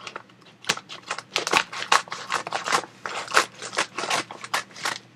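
Rusty scissors snipping through the plastic bag of a bag of dry cat food in a quick, irregular run of cuts, about four or five a second.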